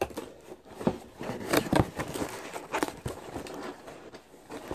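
Cardboard box being opened by hand and its brown paper packing rustled and crinkled, in an irregular series of short crackles and scrapes.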